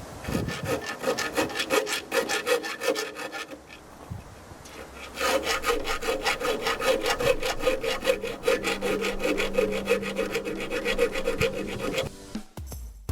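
Hand file rasping back and forth in quick, even strokes, enlarging the ammeter hole in a Grey Ferguson TEF 20 tractor's dashboard. The filing stops for about a second and a half a few seconds in, then carries on.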